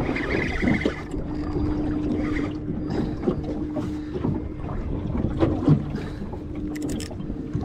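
Steady low hum of a small fishing boat's motor under wind and water noise, with scattered small clicks and a brief rattle about seven seconds in.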